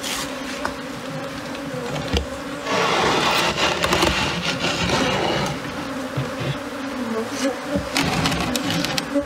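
Swarm of Africanized honey bees buzzing close around, a hum that wavers in pitch as bees fly past. A stretch of loud rustling comes about three seconds in and lasts a couple of seconds.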